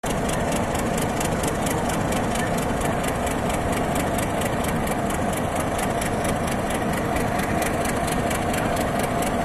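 Diesel-electric locomotive engine idling, a steady drone with a fast, even pulse.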